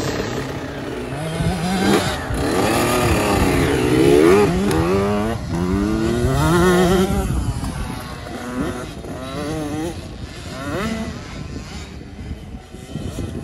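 A small dirt bike's engine revving as it pulls away, its pitch climbing and dropping several times as the throttle is opened and eased off through the gears. It grows fainter over the last few seconds as the bike rides off.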